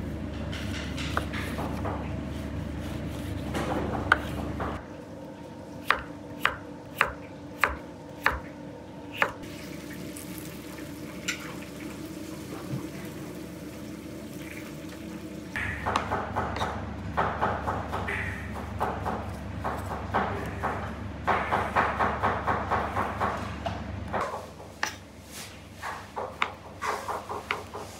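Kitchen prep sounds: a knife slicing raw meat on a wooden cutting board, a run of sharp separate clicks, and rapid knocking. Near the end a knife chops tomatoes on a plastic board, striking it a few times a second. A steady low kitchen hum runs under parts of it.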